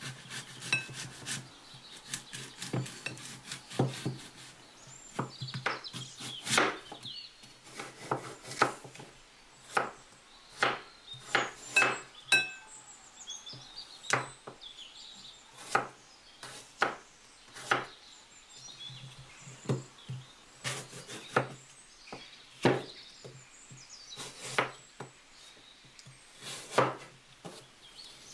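Kitchen knife cutting an apple on a wooden cutting board: irregular sharp knocks as the blade goes through the fruit and strikes the board, sometimes several in quick succession.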